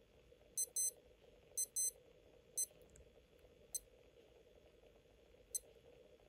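Casio AQ-800 digital-analogue watch beeping as its side buttons are pressed, each press changing the LCD display. There are two quick double beeps about a second apart, then single beeps spaced out by a second or two, the last ones fainter. A faint steady hum runs underneath.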